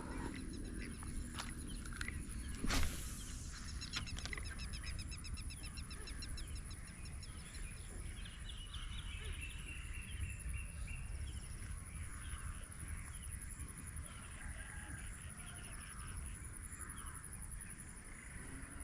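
Birds and insects chirping in a rural wetland, with rapid repeated trills and a steady high-pitched tone over a low rumble. There is one sharp knock about three seconds in.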